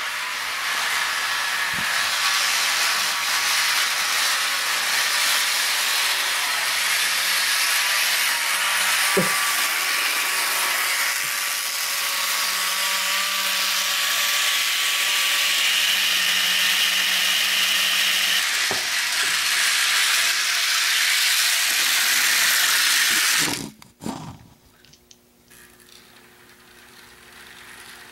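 HO scale model train running on its track: the small electric motor whirs steadily along with the wheel noise, with a few single clicks. The sound drops off abruptly near the end to a much quieter, clicking run.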